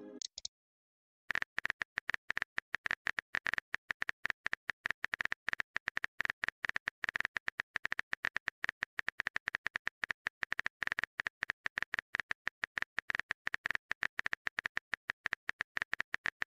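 Rapid, irregular clicking of a phone keyboard's typing sound effect, many taps a second. It starts about a second in, after a short silence.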